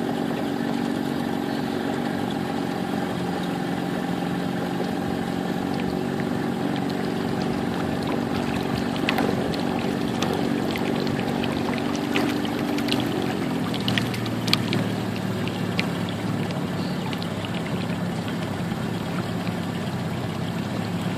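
Small motorboat engine running steadily, its pitch dropping about 13 seconds in as it is throttled back, with water washing along the hull and a few light knocks.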